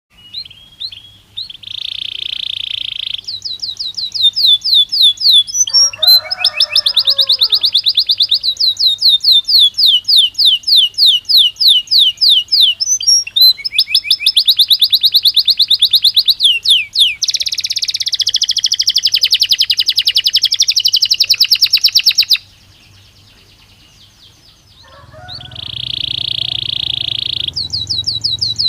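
Belgian canary singing a long, loud song of rapid trills and fast repeated notes, with a few lower rolling notes among them. It breaks off for a few seconds about three-quarters through, then starts again.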